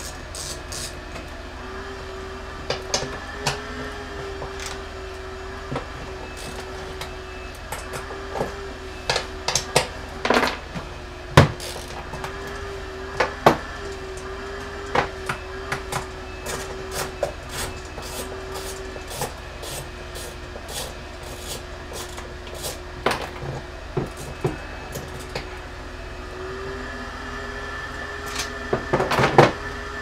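Scattered clicks and knocks of hand tools and a trim panel being worked, as bolts are undone with a 10 mm socket and the panel is pulled out, with a quick flurry of knocks near the end. A steady low hum runs underneath.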